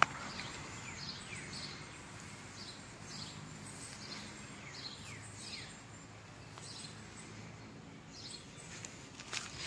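A small bird calling over and over with short chirps that slide downward in pitch, roughly two a second with a brief pause about two-thirds of the way through, against faint steady background noise.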